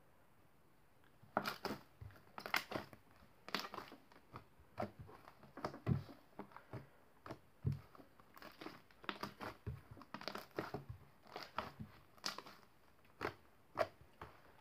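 Green slime being squished and worked by hand, giving irregular sticky clicks and pops that start about a second and a half in and go on unevenly.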